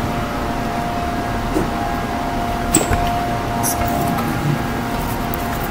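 Steady hum with a few light clicks and rustles as vegetables and cilantro are handled beside the switched-off blender.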